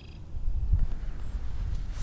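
Low, uneven rumbling buffeting on the microphone, setting in about half a second in, with a short bird call fading out at the very start.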